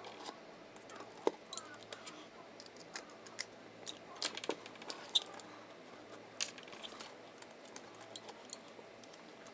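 Scattered small clicks and scrapes of hands connecting wires to the terminals of a wall light switch, over a faint steady hum.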